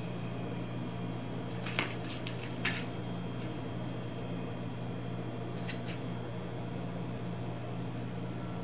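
Steady low hum of the workshop room, with a few light clicks and taps about two and three seconds in and again near six seconds.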